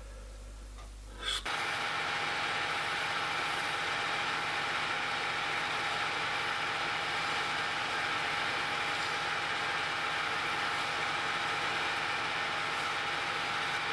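Metal-turning lathe starting up about a second and a half in and then running steadily, with an even mechanical hum and a steady whine.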